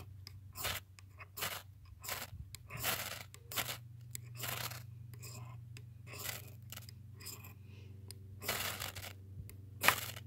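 A steel striker pressed hard and dragged down an Überleben ferrocerium rod, about a dozen slow, heavy scraping strokes with short irregular gaps between them.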